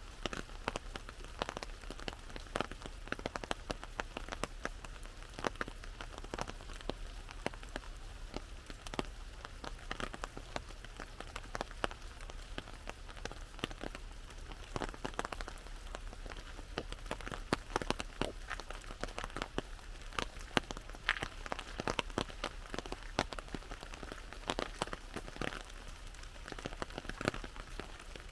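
Rain falling on an umbrella: many irregular drop hits over a steady hiss.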